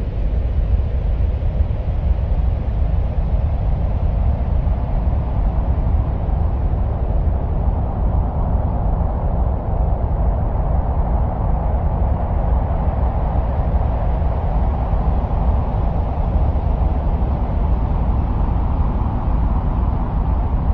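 Steady wind-like noise presented as the sound of Mars: a deep continuous rumble under a softer hissing band that slowly swells and eases around the middle.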